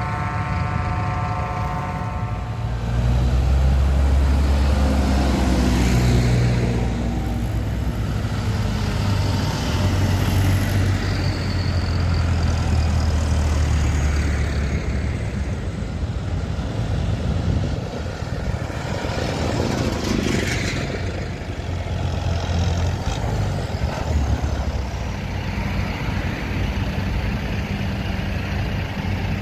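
A convoy of diesel farm tractors driving past with a deep, steady engine drone that swells as the nearest machines pass. A vehicle horn sounds briefly at the start.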